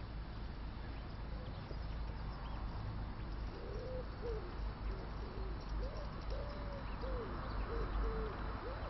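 A pigeon cooing, a run of short, soft, arching coos that starts about a third of the way in and keeps repeating. Beneath them is a low steady rumble.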